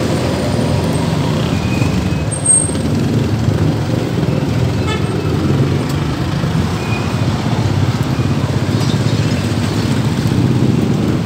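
A motor vehicle engine running steadily close by, a low, even rumble, with street traffic.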